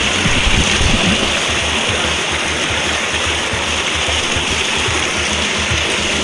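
Waterfall rushing, a steady dense wash of falling water.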